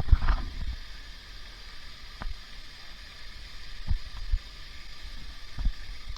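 Steady rushing of a waterfall, with a few short low thumps: a loud one at the start and others about two, four and five and a half seconds in.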